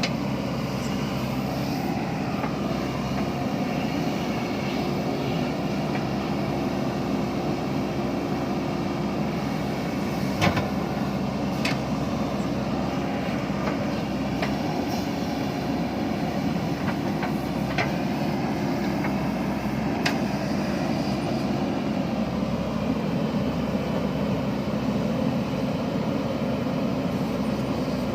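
JCB backhoe loader's diesel engine running steadily while it digs, with a few short sharp knocks scattered through.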